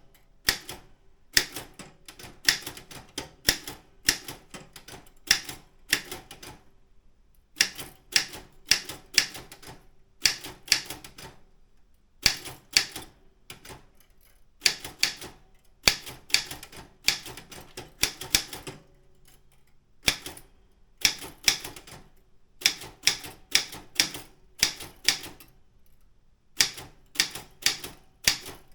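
Typing on a Daro Optima M16 manual office typewriter: runs of sharp key clacks, several a second, broken by a few short pauses.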